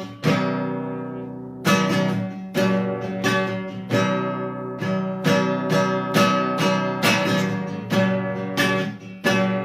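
Acoustic guitar strumming chords, each chord struck sharply and left to ring, about one to two strums a second after a longer sustained chord early on. It is the instrumental lead-in to the song before the vocals start.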